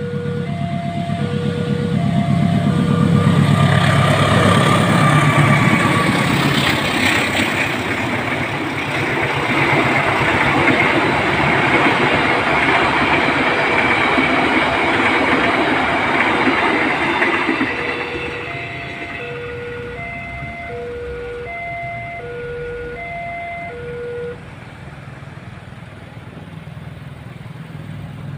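Two CC 201 diesel-electric locomotives run past with a deep engine throb, followed by the loud, steady clatter and rush of passenger coaches on the rails, which fades about 18 seconds in. A level-crossing warning bell chimes in a repeating two-note pattern, plain at the start and again after the train has passed, and stops about 24 seconds in.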